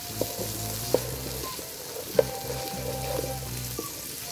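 Diced carrots and garlic sizzling in hot oil in a non-stick wok while a wooden spatula stirs them, knocking against the pan a few times.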